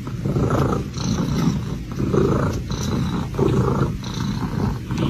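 A cat making a loud, rough rumbling sound in a steady run of pulses, about one every three quarters of a second, like a heavy purr or a low growl.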